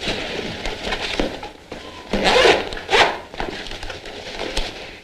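Rustling and scraping of a cloth bag and fabric being handled, with two louder scrapes about two and three seconds in.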